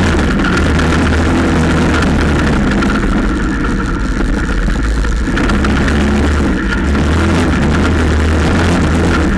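Quad bike engine running under way, a steady low drone that eases off for a couple of seconds around the middle and picks up again.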